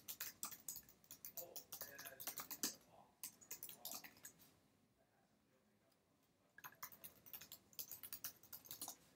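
Faint typing on a computer keyboard: a quick run of key clicks for about four and a half seconds, a pause of about two seconds, then another run of clicks near the end.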